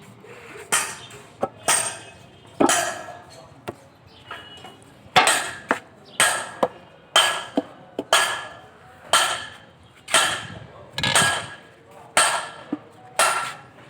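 Hammer blows on metal, about one a second, each strike ringing briefly.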